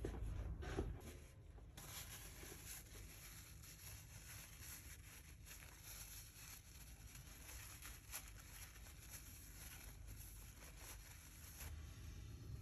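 Near silence: faint workshop room tone with a low hum, and a few soft handling clicks in the first second.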